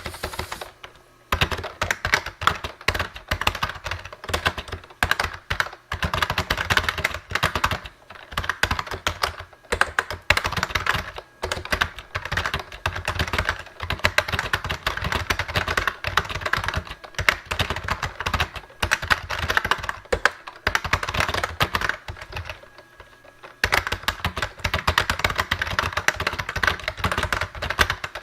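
Fast, continuous typing on a Lexmark-made IBM Model M style keyboard with rubber-dome keys, a dense run of key clacks with a short pause about three quarters of the way through.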